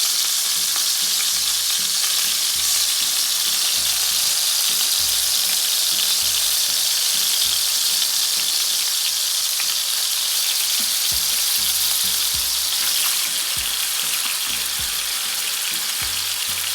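Chicken thighs frying in hot butter in a frying pan: a steady sizzling hiss with fine crackling.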